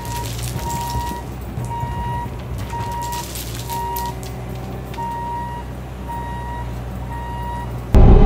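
Bobcat T650 compact track loader's backup alarm beeping steadily, about one beep a second, over its running diesel engine, with gravel clattering out of the tipped bucket. Near the end the engine suddenly becomes much louder, as heard from inside the cab.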